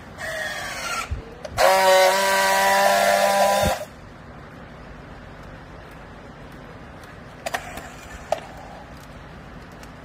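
Battery-powered handheld strapping tool on a plastic strap: a short motor whine, then about two seconds of loud, steady motor buzz that cuts off abruptly, as the tool tensions and seals the strap. Two sharp clicks follow near the end.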